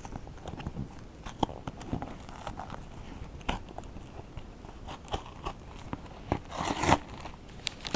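Packaging being handled and unwrapped: crinkling, rustling and scattered clicks of paper and small plastic bags, with a louder rustle near the end.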